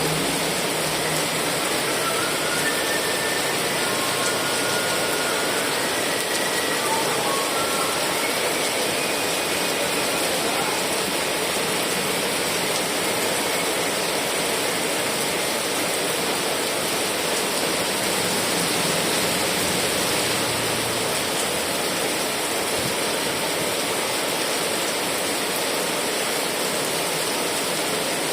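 Heavy rain falling steadily, an even rushing hiss. A few faint, short high tones come and go during the first ten seconds or so.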